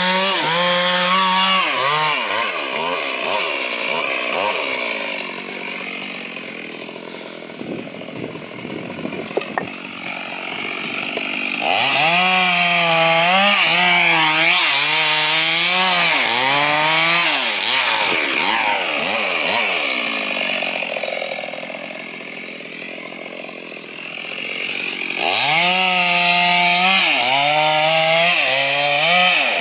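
Chainsaw engine revving and easing off as it cuts, its pitch swinging up and down. It runs loudest about a second in, again from about twelve to eighteen seconds, and from about twenty-five seconds, and is lower and quieter in between.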